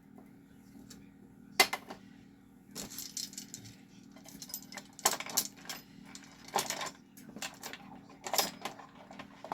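Hard objects clinking and rattling as they are handled, in about five short clusters of sharp clicks, over a faint steady low hum.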